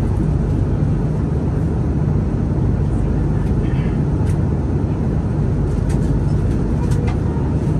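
Airbus A330 airliner cabin noise in flight: a steady, unbroken low rumble of engines and airflow, with a few faint clicks over it.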